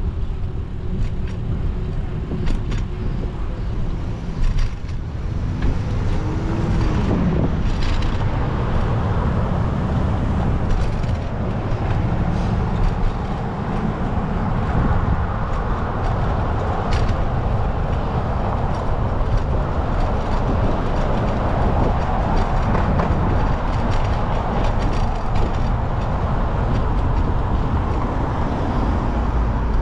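Street traffic, cars and buses passing, heard from a moving bicycle, with a steady low rumble of wind on the microphone. The traffic grows louder about six seconds in.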